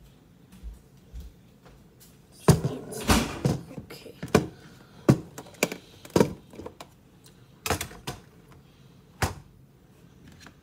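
Dishes and food containers being handled and set down on a table: a series of knocks and clunks, the loudest about two and a half seconds in, with a brief rustle or scrape around three seconds in.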